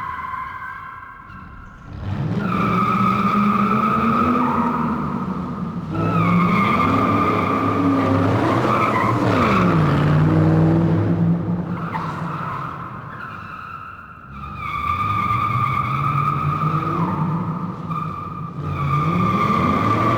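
Car tyres squealing in long skids, a high steady squeal over the engine revving up and down. It starts about two seconds in, fades for a moment past the middle, then squeals again.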